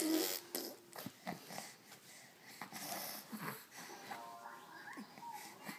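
A 4-month-old baby making funny noises: a string of short, breathy, irregular sounds, with faint music behind.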